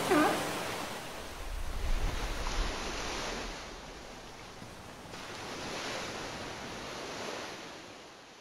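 Sea water surging and splashing in a steady wash, with a louder low rush about two seconds in. A short pitched call sounds at the very start, and the sound fades out near the end.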